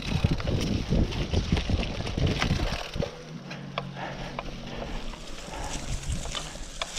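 Cyclocross bike tyres rolling over dry fallen leaves and twigs, with crackling snaps and rattles. Heavy wind rumble on the microphone for the first few seconds, then it drops off and the crackling stands out.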